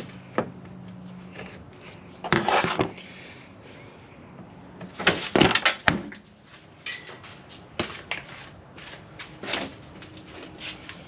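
Scattered knocks, clicks and rattles of truck parts being handled and pulled apart, with two louder bursts of clatter about two and five seconds in.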